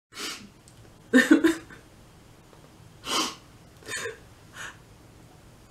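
A woman crying in short sobs and gasping, sniffling breaths, about five in all, the loudest and most voiced about a second in. The crying is put on, a mock sob rather than real distress.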